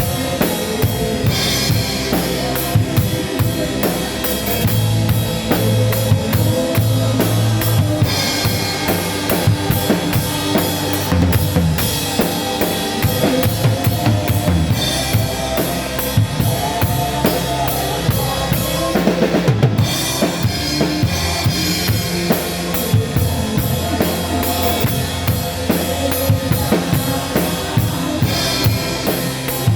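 Live band music driven by a drum kit playing a steady beat, with kick drum and snare under held instrument tones, recorded on a mobile phone.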